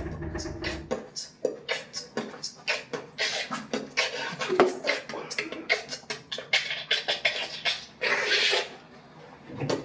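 A beginner's beatbox set done with the mouth: a fast run of sharp clicks, snare-like pops and hisses, including the inward-sucked crab scratch she has just been taught, with one longer hiss about eight seconds in before it tails off near the end.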